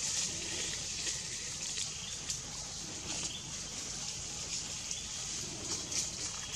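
Steady high-pitched hiss of outdoor background noise, broken by faint, irregular crackles.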